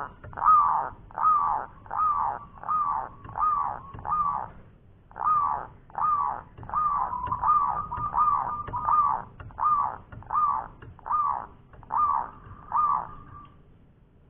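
Zebra dove (perkutut) giving a long run of rough, repeated 'koar' calls, about one every 0.7 s. There is a short break about five seconds in, and the run stops shortly before the end.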